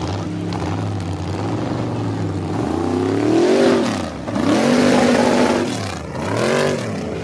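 Lifted mud truck's engine running hard under load. In the second half it revs up and down three times, the pitch climbing and dropping with each rev.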